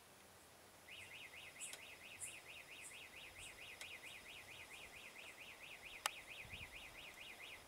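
Reversing alarm of a Tata minibus backing up: an electronic warble sweeping up and down about four or five times a second, starting about a second in. A single sharp click is heard about six seconds in.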